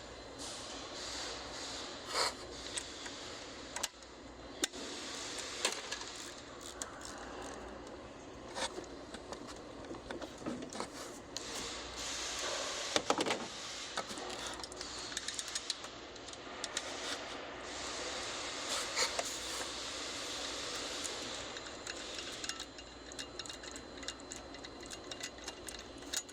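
Irregular clicks and metallic clinks of hand tools as the belt tensioner on a BMW N55 engine is unbolted with a ratchet and E12 Torx socket and lifted out.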